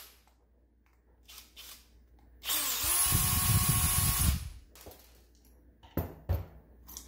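Bosch cordless drill/driver running for about two seconds as it backs a screw out of a plug housing, with a rising whine as the motor spins up. Two knocks follow near the end.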